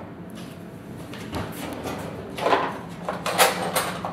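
A few short knocks and scrapes of kitchen things being handled on the counter, starting about a second and a half in.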